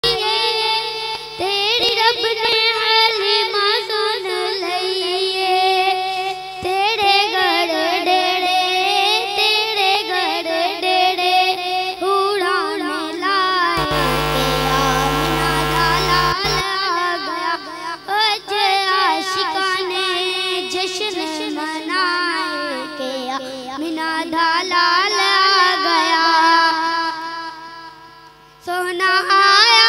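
A boy singing a naat solo into a microphone, without instruments, his voice carried over a PA system in long, ornamented lines that wind up and down in pitch. About halfway a couple of seconds of steady noise cuts across the voice, and near the end it dips for a moment before he sings on.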